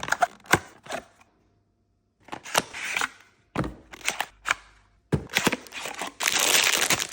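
Packaging being handled and opened: sharp clicks and taps, a short pause, then rustling, with a longer continuous crinkling stretch near the end.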